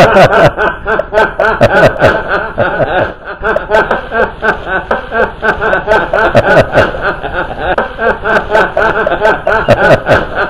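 A man laughing hard and without a break, rapid repeated ha-ha pulses several times a second.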